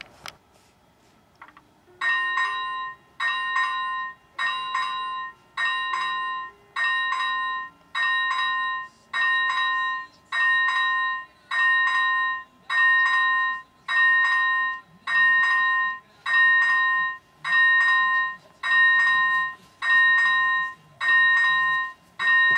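Level-crossing warning bell (AŽD ZV-01 electronic bell) starting about two seconds in and ringing steady, evenly spaced strokes, a little more than one a second, each a bright clang that fades before the next. It is the crossing's warning that a train is approaching.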